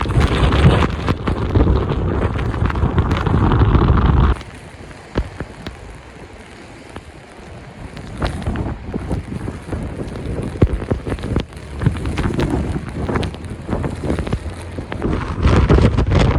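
Strong wind buffeting the microphone in a blizzard. It drops off suddenly about four seconds in to quieter gusting with scattered ticks, and builds again near the end.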